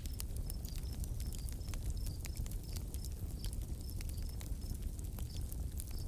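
Nature ambience: crickets chirping at a steady pace, about two chirps a second, over a low steady rumble with scattered sharp ticks.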